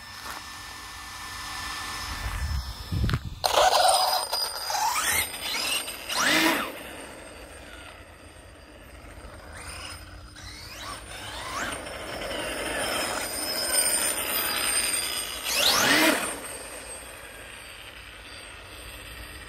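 MCD W5 1:5-scale RC car with a TP Power TP5860 brushless motor running flat out on road tyres: a high whine from motor and gearing that climbs and falls in pitch as it accelerates and passes, loudest about four, six and sixteen seconds in.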